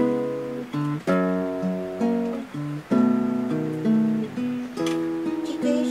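Acoustic guitar music: chords strummed every couple of seconds, with plucked melody notes between them.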